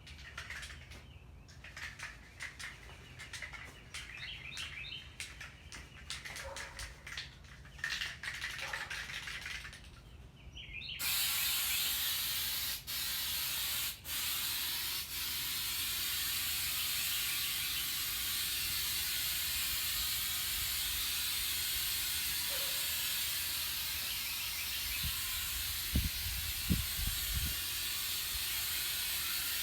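Aerosol can of undercoating spraying in a long, steady hiss that starts suddenly about a third of the way in, with two brief breaks soon after. Before it, birds chirp, and a few low thumps come near the end.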